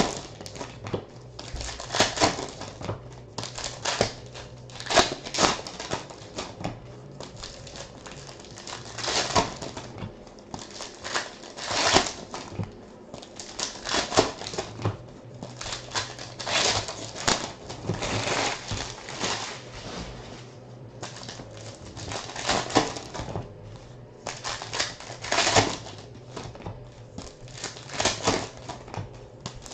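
Foil trading-card pack wrappers being torn open and crinkled, with cards handled, in short rustling bursts every second or so over a faint steady low hum.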